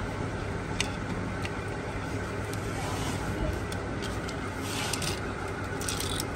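Steady hum of motor-vehicle noise with a few light sharp clicks, and two short hissing rushes in the second half.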